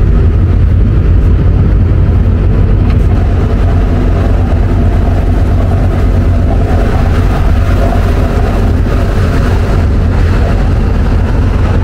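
Car ferry underway: its engines give a steady low rumble, with water washing along the hull.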